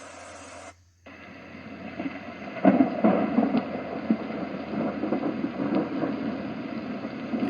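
A white noise machine's rain track cuts out briefly under a second in as it switches to the next rain sound: rain with deep rumbles of thunder, swelling from about two and a half seconds in. It plays through the machine's small speaker.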